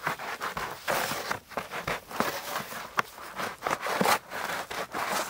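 A sheet of winter birch bark being pried and peeled off a log with a blade, giving irregular crackling and scraping with a few sharp snaps.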